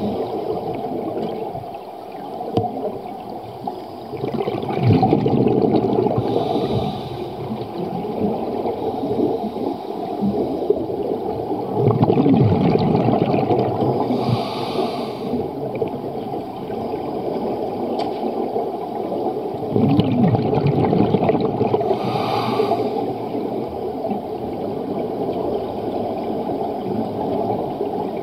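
Scuba diver breathing through a regulator underwater: a hiss on each inhale, then gurgling exhaust bubbles on each exhale. There are three slow breaths, each seven to eight seconds apart.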